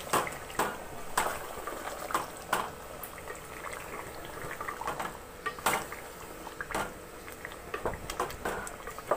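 Spatula stirring chicken pieces through wet masala in a metal pot. It knocks and scrapes against the pot at irregular moments over the wet, bubbling sound of the curry.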